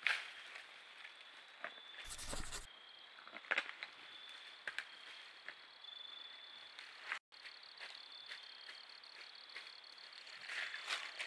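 Outdoor trail-camera sound: a steady high hum with scattered sharp clicks and short rustles, and a brief dropout about seven seconds in.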